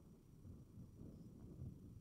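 Near silence: a faint, uneven low rumble of light wind on the microphone.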